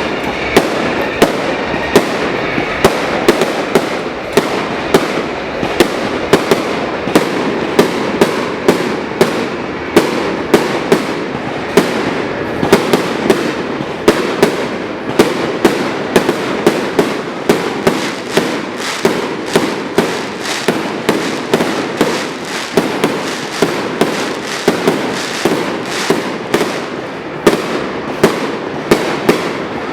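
Fireworks display: a steady barrage of sharp bangs, roughly one or two a second, over a continuous crackle.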